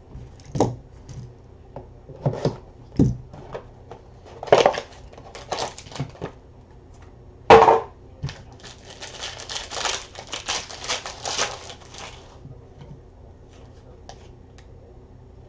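Trading-card box and foil packs being handled: scattered taps and rustles, a sharp knock about seven and a half seconds in, then a few seconds of dense crinkling and tearing as a foil pack wrapper is opened.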